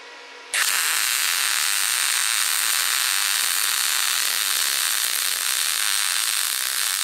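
MAG welding arc from an Ipotools MIG 250s synergic inverter welder with 0.8 mm steel wire, striking about half a second in and then running as a steady, even hiss on steel tube and plate. The machine is on its synergic setting for 3.5 mm material and welds at once.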